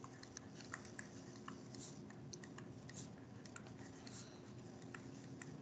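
Faint scattered ticks and light scratches of a stylus on a writing tablet as words are handwritten, over a low steady hum.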